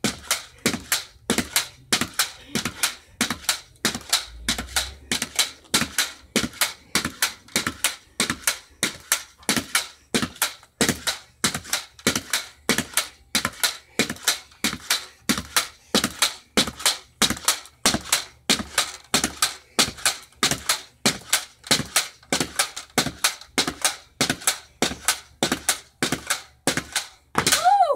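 Pogo stick bouncing steadily on a paver patio: a sharp metallic knock at each landing with a short ringing after it, about two bounces a second in an even rhythm.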